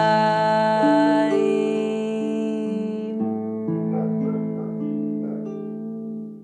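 Gentle instrumental music of sustained, overlapping notes that shift pitch every second or so, fading near the end.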